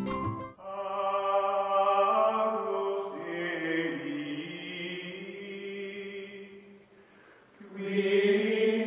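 Choral chanting music: long held voices sustaining notes that shift pitch a few times. It fades away briefly about seven seconds in, then comes back strongly.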